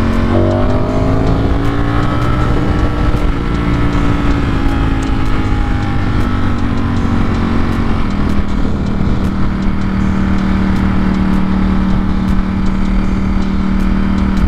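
Ducati Streetfighter V4 S's 1103 cc V4 engine pulling at road speed, its note rising over the first couple of seconds and then holding. About eight seconds in the pitch drops a step as it shifts up from fourth to fifth gear and settles into an even cruising note, with wind noise over the microphone.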